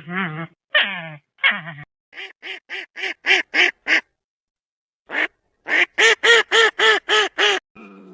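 A duck quacking in two quick runs of short quacks, about four a second, with a pause of about a second between them. The first two seconds hold three longer calls that fall in pitch.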